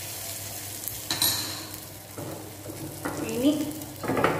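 A hot tempering of mustard seeds, dried red chillies and curry leaves in coconut oil sizzles in a small steel tempering pan as ladlefuls of curry go in. The hiss starts suddenly about a second in and dies away, and the metal ladle and pan clink and knock several times.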